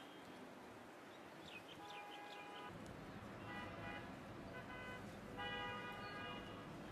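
Faint vehicle horns honking about five times in a row, mostly short toots with a longer one near the end. A few quick high chirps come just before the first honk, and a low rumble of traffic comes in about three seconds in.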